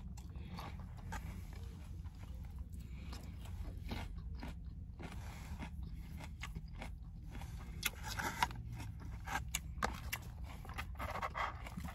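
A person chewing and biting food close to the microphone, with scattered small crunches and wet mouth clicks over a faint low hum.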